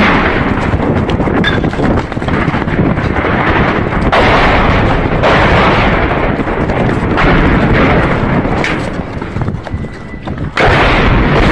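Running footsteps and loud rubbing and knocking from a phone carried by a sprinting man, dense and irregular, easing a little about nine seconds in before picking up again near the end.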